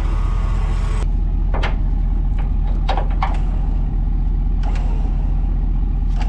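Truck engine idling steadily, with a few sharp metal clanks of tie-down chains being handled on a car-hauler trailer deck.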